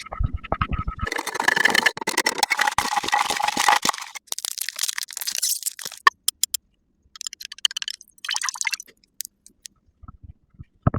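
Close-miked crackling and scratching of makeup products and tools being handled, as in makeup ASMR: a dense run of crackles for a few seconds, then shorter scratchy bursts separated by brief silences.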